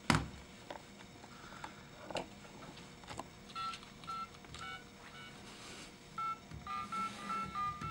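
A click, then from about three and a half seconds in, short touch-tone keypad beeps from a phone played through a Snap Circuits echo module and its small speaker, with echo added. The beeps come thicker near the end.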